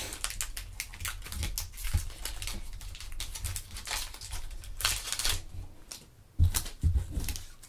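Foil trading card pack crinkling and tearing as it is pulled open by hand, a quick run of crackles. Near the end there are a few dull knocks.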